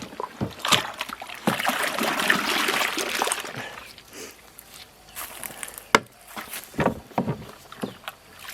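Liquid sloshing and splashing in a 200-litre barrel of cow-manure liquid fertilizer brew. A burst of splashing comes about one and a half to three seconds in, and several sharp knocks are scattered through.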